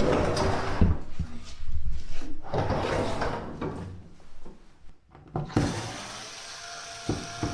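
Clattering and rattling from handling a washing machine during repair. About five and a half seconds in, a steady machine hum with a faint whine starts.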